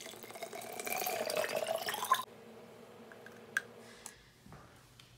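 Water poured from a plastic jug into a CamelBak Podium Big Chill insulated plastic water bottle, the pitch rising steadily as the bottle fills, stopping abruptly about two seconds in. A single sharp click follows a second or so later.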